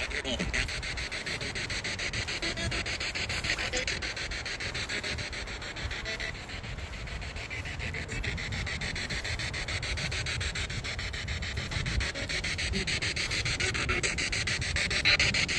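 Spirit box scanning through radio stations: a steady static hiss chopped into rapid, even pulses as it sweeps.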